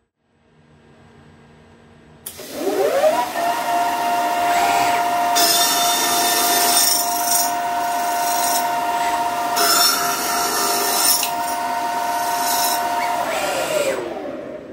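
80 mm, 72-tooth HSS slitting saw on a CNC lathe spindle sawing through 7075 aluminium. The spindle whine rises as it spins up about two seconds in, then holds steady under the loud noise of the cut, which swells louder in two or three stretches. The whine falls away as the spindle stops near the end.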